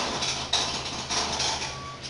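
Hot air rework station blowing onto a circuit board: a steady fan hum under several uneven surges of airy hiss while the solder of a newly fitted transistor is reflowed.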